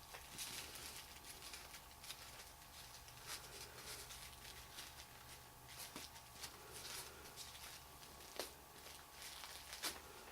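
Faint rustling and crinkling of paper wrapping being handled and unwrapped, with two sharper clicks near the end, over a low steady hum.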